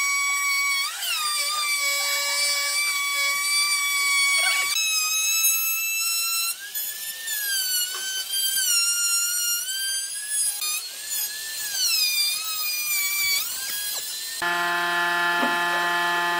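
Makita trim router running at high speed with a steady high whine. From about five seconds in, its pitch wavers and dips again and again as the bit cuts around the circular groove in the wooden tabletop. About two seconds before the end, the whine gives way suddenly to a steady low hum.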